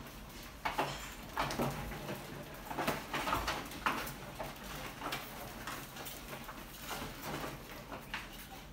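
Rats scrabbling and scurrying over a wire-mesh cage lid and glass tank: irregular scratching and light clicking of claws, busiest in the first half.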